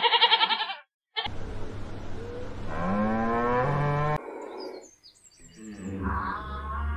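Farm animals calling in a string of short cut-together clips: a quavering bleat at the start, then after a short silence a longer call whose pitch rises, and another call near the end.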